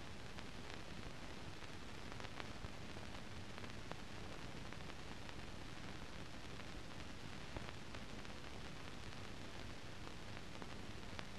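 Steady hiss of an empty soundtrack from a silent film transfer, with a few faint clicks scattered through it.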